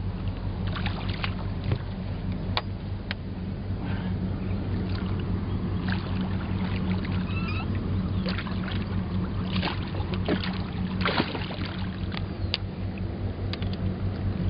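Boat motor running steadily with a low hum, with scattered clicks and knocks over it.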